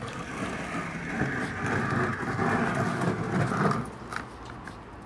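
Long-handled bristle brush scrubbing a soapy car body, a steady scrubbing noise that stops about four seconds in.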